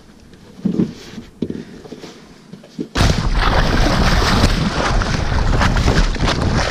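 A couple of soft thumps, then about three seconds in a sudden loud rush as a boat's hull cuts through choppy water at speed, spray hissing and splashing with heavy wind buffeting on the microphone.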